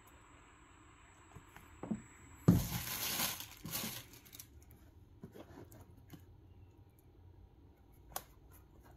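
Packing tissue paper in a shoebox crinkling loudly for about two seconds as a sneaker is lifted and turned over it, followed by softer rustles and a single short tap near the end.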